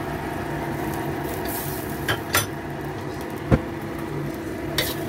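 Spatula stirring mushrooms in a wok as cornstarch slurry goes into the sauce, with a few sharp clinks against the pan, the loudest about three and a half seconds in. Underneath are a faint sizzle and a steady hum.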